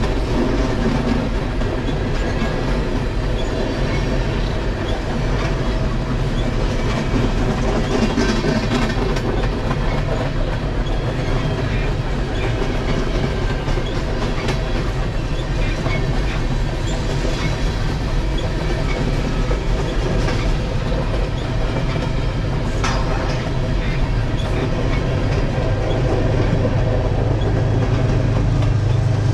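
A BNSF freight train rolling past, with the steady noise of its cars' wheels on the rails.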